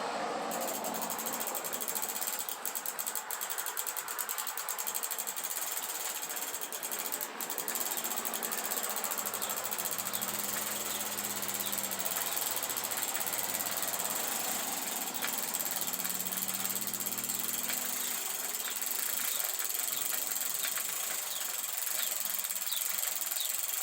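Bicycle chain being cranked backwards through a Park Tool CM-5.3 Cyclone chain cleaner: a steady fast clicking of the freewheel ratchet mixed with the chain scrubbing through the cleaner's brushes in its fluid. A low, engine-like hum swells in and fades out in the middle.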